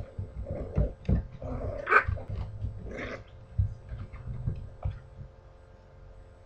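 Two puppies play-fighting, with short growly cries and yips, the loudest about two seconds in and another about three seconds in, over a run of soft thumps of paws and bodies on the floor.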